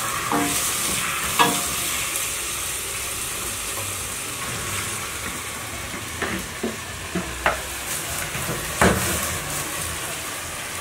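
Cooked leafy greens being stirred into spring onions frying in oil in a steel pot: a steady sizzle, with a few short knocks of the wooden spatula against the pot and bowl.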